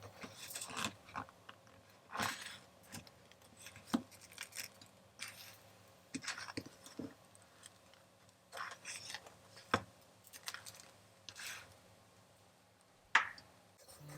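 Food-preparation sounds: irregular taps, clicks and short scrapes of kitchen utensils and ingredients being handled, with one sharp click near the end.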